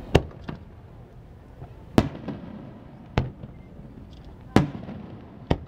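Aerial fireworks shells bursting: about five loud, sharp bangs at uneven gaps, each trailing off in a short echoing rumble.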